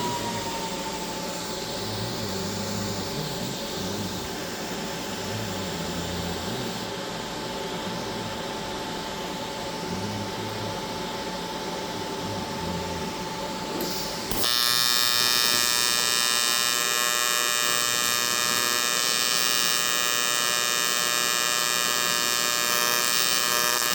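AC TIG welding arc on aluminum: a harsh, steady electric buzz that starts abruptly about halfway through and holds. Before it there is a quieter steady hum with a faint whine.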